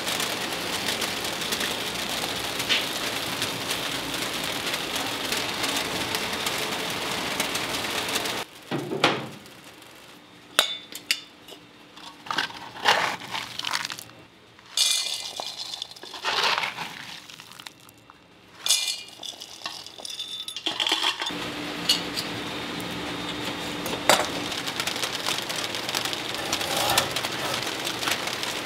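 Kitchen work: clinks and knocks of pans, trays and utensils being handled in the middle stretch, between longer stretches of steady noise with a faint hum.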